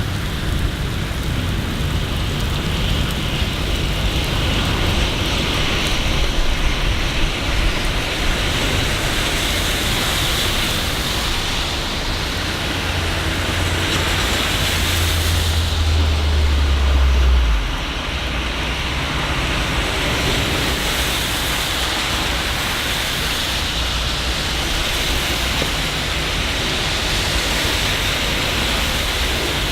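Steady rain falling in a city street, an even hiss throughout. About halfway through, a low rumble builds for a few seconds and then cuts off suddenly.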